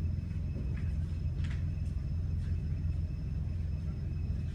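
Steady low rumble of room background noise, with a faint steady high whine and a few faint brief sounds.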